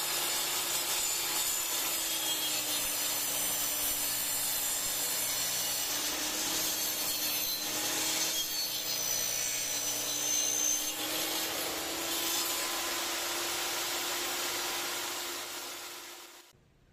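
A power tool cutting wood: a steady motor hum under a dense, continuous hiss of cutting, which fades and then stops abruptly near the end.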